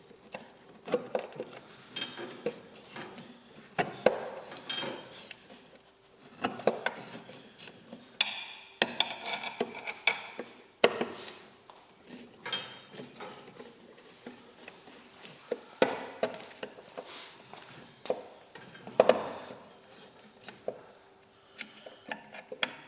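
Irregular clinks, taps and knocks of hand tools and metal parts while a headlight is taken out of a bus's fibreglass front wing, with a short scraping stretch about nine seconds in.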